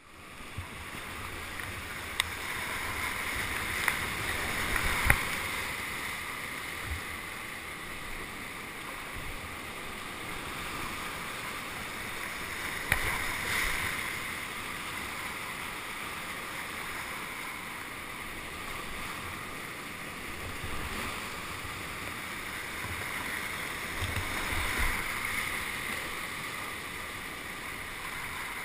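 Steady rush of moving river water, with a few brief, sharper splashes.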